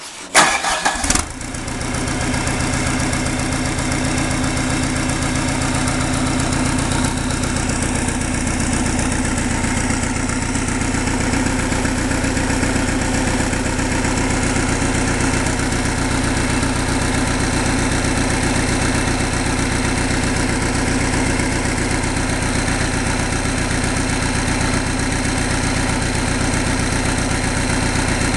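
Freshly rebuilt Deutz BF4M1011F four-cylinder turbo diesel on its first start: about a second of cranking on the starter, then it catches and settles into a steady idle.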